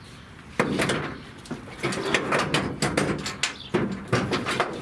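Hand work on a car's rear wiring harness as it is cut loose: a busy run of sharp clicks, snaps and scraping that starts about half a second in.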